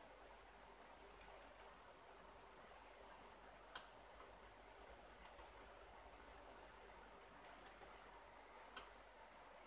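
Faint computer mouse clicks, some single and some in quick runs of two or three, over a low steady room hiss.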